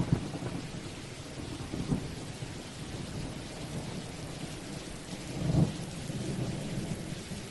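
Steady rain falling, with low rumbles of thunder that swell a few times, the strongest about five and a half seconds in.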